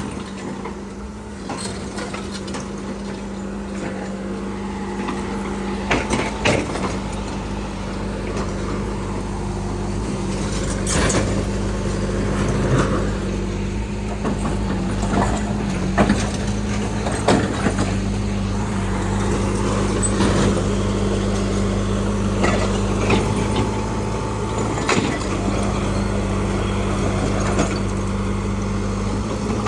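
Hitachi Landy-2 excavator's diesel engine running steadily, with scattered sharp knocks and clanks from the machine working.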